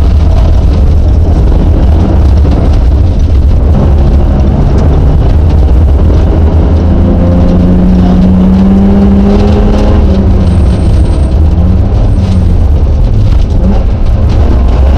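Rally car engine heard from inside the cabin at full stage pace, its revs rising and falling through the gears with one long pull in the middle, over a heavy, constant low rumble of tyres and body.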